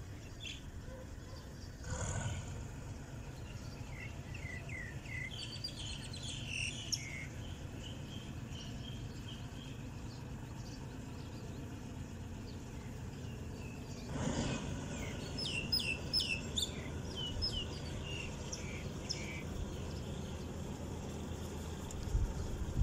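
Small birds chirping in two spells over a steady low rumble from a passenger train pulling away down the line. Two brief whooshes come through, one about two seconds in and another just past the middle.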